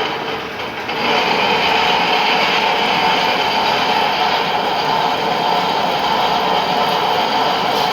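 Lathe cutting a workpiece: a steady, loud grinding hiss with a whine in it. It grows louder about a second in and stops at the end.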